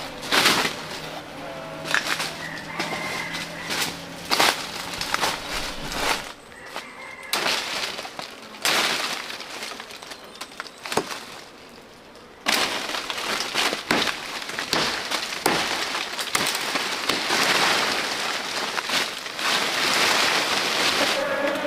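Footsteps crunching through dry leaf litter and undergrowth, with sharp cracks and snaps of twigs. About halfway through the rustling turns continuous and louder, as of brush being pushed through or handled.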